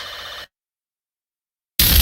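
An electronic countdown warning tone, a high ringing beep that repeats once a second, cuts off abruptly into dead silence. About a second and a quarter later a sudden, very loud burst of noise breaks in.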